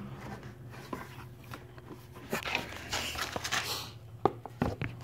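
Handling noise: scattered light clicks and knocks, several close together near the end, over a low steady hum.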